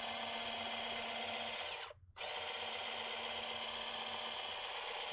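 Small 12-volt oil extraction pump motor running with a steady whine. It cuts out about two seconds in and starts again a moment later. It sounds really weird, and the owner takes the old pump to be failing.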